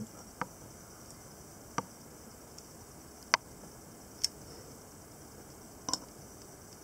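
Five sharp, separate clicks from the camera's buttons and dial being worked while focusing, over a faint steady hiss.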